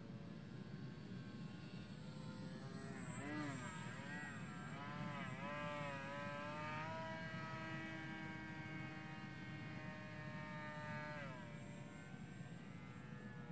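Mini Funtana radio-controlled aerobatic model airplane's motor running in flight. From a few seconds in, its pitch swoops up and down several times as the plane manoeuvres, then holds a steady high note before dropping away near the end, over a low background hum.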